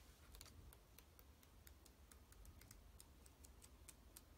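Near silence with faint, light ticks scattered irregularly throughout as the pages of a paperback book are leafed through by hand.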